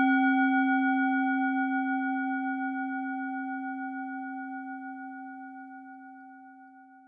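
A single struck bell-like metal tone ringing out and slowly fading away, with a gentle wavering in its loudness.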